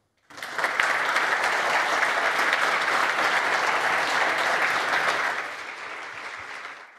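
Audience applauding: many people clapping together, starting abruptly and dying away over the last couple of seconds.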